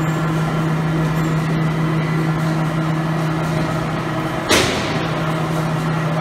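Wipes-making machine running with a steady low hum. A short, sharp hiss cuts through once, about four and a half seconds in.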